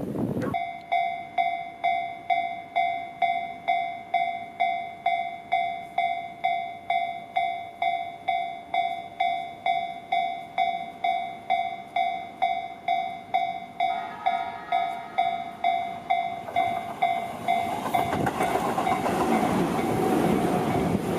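Japanese level-crossing warning bell ringing about twice a second, then a Tobu Tojo Line train arriving and running over the crossing from about three-quarters of the way in, its wheel noise growing louder and drowning out the bell.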